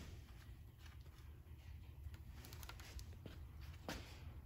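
Near-silent room tone with a few faint clicks and taps from hand work on a small-block Chevy 350's rocker arms while valve lash is being set.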